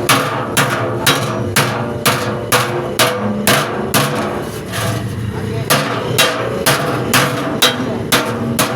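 Blacksmith's hammer striking metal in a steady rhythm, about two blows a second, each blow ringing briefly.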